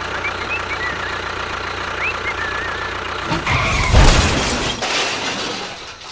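A steady engine drone from a small motorised machine, then a loud crashing clatter about three and a half seconds in that dies away over the next two seconds.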